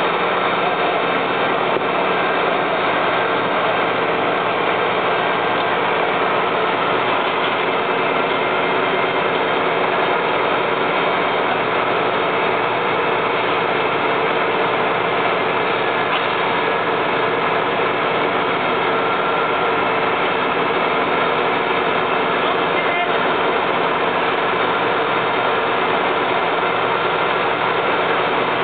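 Fire engine's diesel engine running steadily at a raised idle, driving the hydraulics of a turntable aerial ladder as it is raised.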